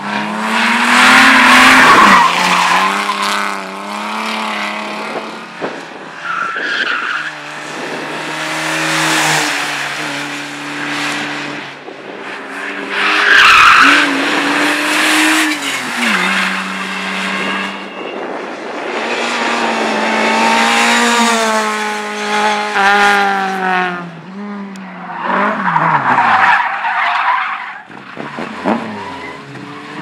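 Slalom cars driven hard, engines revving up and down over and over, with repeated bursts of tyre squeal as they slide sideways through the turns; the loudest squeals come about two seconds and fourteen seconds in.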